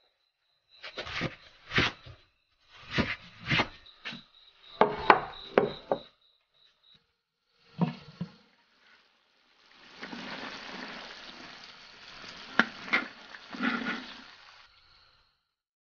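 Rustling and sharp knocks among leafy plants, one after another for several seconds, over a faint pulsing high trill of insects. Then, after a short gap, braised pork trotters and dried beans sizzle in a wok as they are stirred, a steady hiss with light scrapes and clicks.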